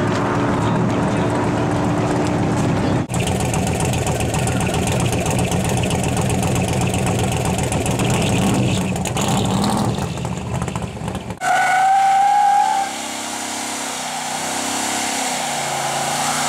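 Muscle-car engines in three cuts: cars running hard on a coned course, then, about three seconds in, an engine running loud close to its side-exit exhaust pipe. About eleven seconds in, a Dodge Charger's rear tyre spinning in a burnout: a brief squeal, then a steady rushing hiss.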